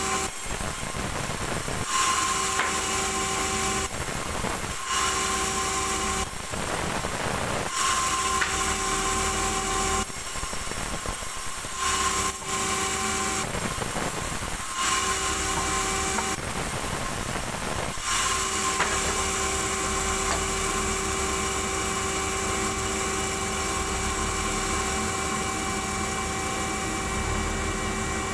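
Sawmill band saw running with a steady whine that breaks into a noisier rasp about six times, a second or two each, as the blade cuts into a log. In the last ten seconds it runs on steadily without cutting.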